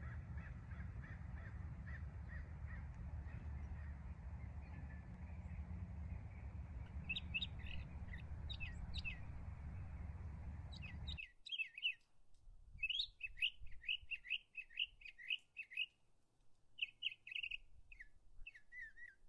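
Wind rumbling on the microphone with birds chirping over it, then after an abrupt cut about eleven seconds in, small birds chirping clearly in quick runs of short, falling notes.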